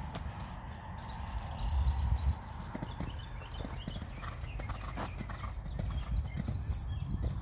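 Horse's hoofbeats thudding on sand footing as it canters under a rider.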